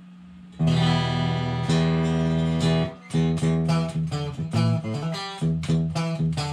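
Harley Benton Fusion II electric guitar with its humbucker coil-split, played on the clean channel of a Mesa/Boogie JP-2C amplifier: a strummed chord rings for about two seconds, then a run of shorter chords follows.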